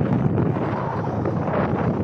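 Strong gusty wind buffeting the microphone, a loud, uneven rumble.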